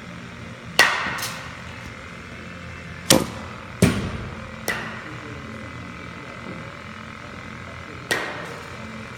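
Sharp thwacks of baseballs in an indoor batting cage, pitched balls striking the bat, netting or backstop. There are six impacts in three groups, the loudest about a second in, each with a short echo in the hall.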